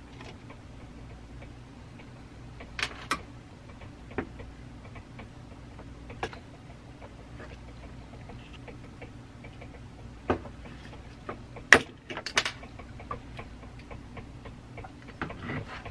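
Scattered clicks and small knocks of a screwdriver and a circuit board being worked loose from a small metal power-supply case, the loudest pair of clicks coming about twelve seconds in, over a faint steady hum.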